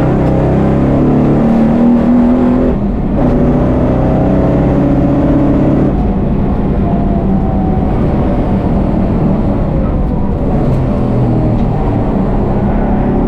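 Heavily modified 1000 hp VF Commodore race car's engine running loud on track: it revs up, shifts about three seconds in, pulls up again and eases off about six seconds in. The exhaust is loud enough to exceed the track's 95 dB noise limit.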